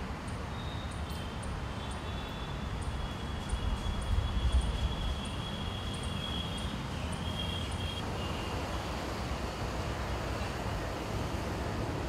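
Steady low rumble of city traffic, with a heavier vehicle passing and swelling louder around four seconds in. Over the first two-thirds, a faint thin high whistle and light regular ticking sit above the rumble.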